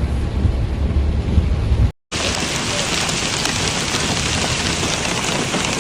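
Heavy rain pouring down in a steady, dense hiss. It follows a low rumble that cuts off abruptly about two seconds in.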